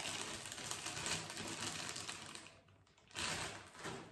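A clear plastic cosmetics packet crinkling and crackling as it is handled and opened, in one run of about two and a half seconds and then a shorter burst about three seconds in.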